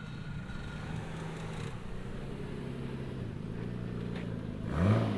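A car engine idling with a slightly wavering pitch, given one quick rev blip near the end that is the loudest moment.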